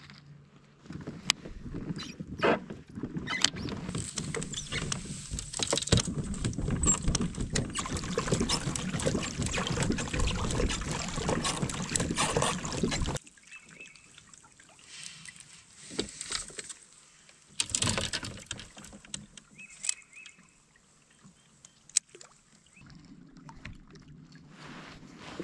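Water rushing and splashing against the hull of a moving fishing kayak, with scattered knocks and rattles of gear. It cuts off suddenly about halfway through. After that it is much quieter, with a few light clicks.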